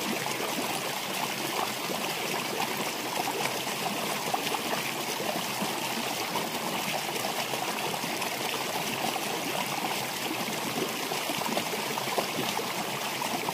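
A rocky stream flowing steadily, its running water the only sound.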